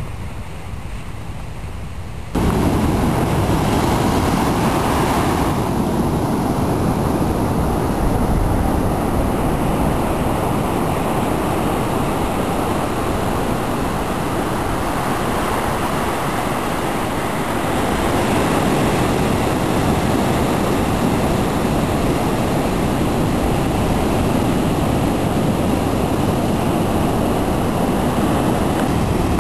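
Ocean surf washing up the beach, mixed with wind rushing over the microphone as a steady loud noise. It jumps suddenly louder about two seconds in.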